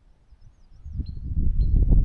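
Wind gusting on the microphone: a loud, irregular low rumble that comes up about a second in, with a small bird chirping a few times above it.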